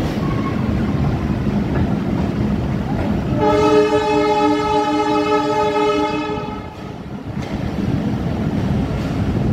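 Passenger train running, with a steady rumble of wheels on the track, heard from a carriage. About three and a half seconds in, the locomotive's horn sounds one steady blast lasting about three seconds.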